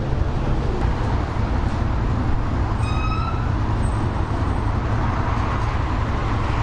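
Steady low rumble of road traffic, with a short high squeak about three seconds in.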